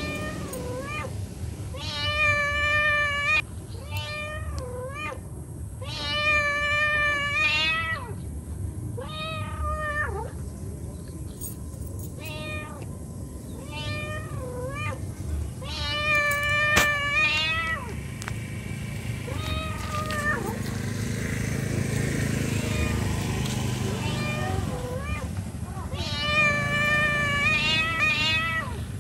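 Domestic cat meowing over and over, the calling meows of a mother cat to her kittens. About four long, drawn-out meows with a wavering pitch alternate with shorter meows in between.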